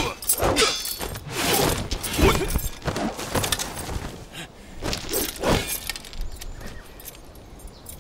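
Staged martial-arts fight sound effects: a rapid run of blows, swishes and crashes. The loudest hit comes about two seconds in, and the fight dies down over the last couple of seconds.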